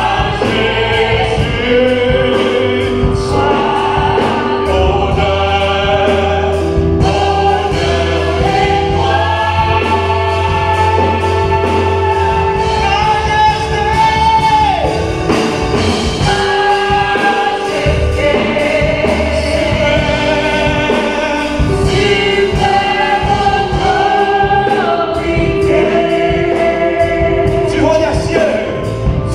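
Choir singing a gospel song with instrumental accompaniment, with long held sung notes over a bass line.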